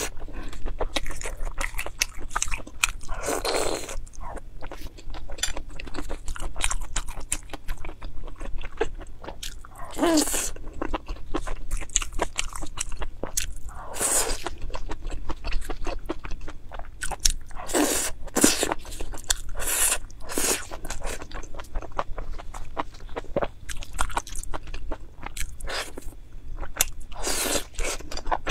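Close-miked chewing and biting of skewered grilled sausages and meat in sauce: a steady run of wet mouth clicks and crunches, with a louder mouth sound every few seconds.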